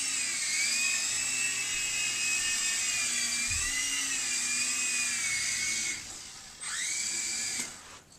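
Blade mCX micro coaxial RC helicopter's electric motors whining at high pitch, the pitch wavering up and down as the throttle changes. The whine cuts off about six seconds in, spins up again with a rising pitch, and stops near the end.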